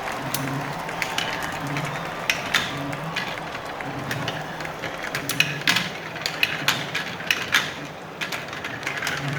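Marble collision sound effects from a simulated marble race: many quick, irregular clicks of marbles knocking against each other and the track. A low hum pulses beneath them about once a second.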